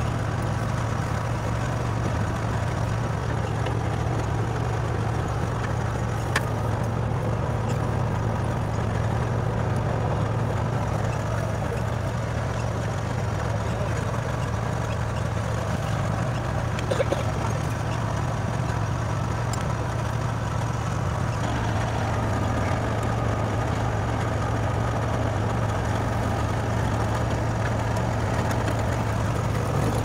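An engine idling steadily with a low, even hum, and a couple of sharp clicks of a wrench on metal, about six seconds in and again near the middle.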